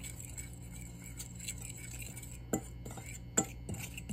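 Metal fork stirring flour and seasoning in a bowl: soft scraping with a few sharp clicks of the fork against the bowl, mostly in the second half.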